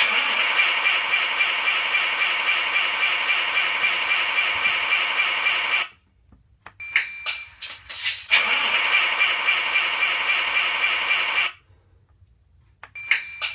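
RC truck sound module playing a Scania R620 V8 engine sound through a small loudspeaker, thin with no deep bass. It runs steadily for about six seconds and cuts off suddenly. After a short pause come a few clicks and a short beep, then it runs again for about three seconds and cuts off.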